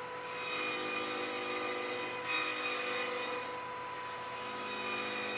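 Table saw running with a steady whine as a cove is cut into a wood strip fed at an angle across the blade, its teeth ground round; the cutting noise eases a little past the middle and comes back.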